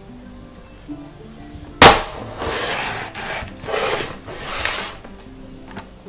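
A sharp plastic click about two seconds in, then a few seconds of rubbing and scraping of hard plastic parts as a cordless stick vacuum's floor-brush head and wand are handled and detached. Background music plays underneath.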